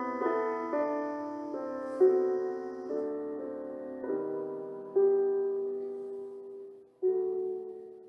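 Slow, gentle piano background music: chords struck about once a second or two, each left to ring and fade, the last one about seven seconds in dying away.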